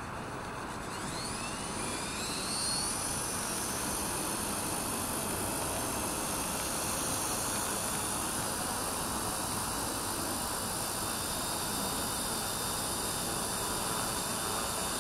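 WLtoys V950 200-size RC helicopter's semi-brushless motors and rotor spooling up before lift-off: a whine that rises in pitch over the first few seconds, then settles into a steady high whine over a steady rushing noise.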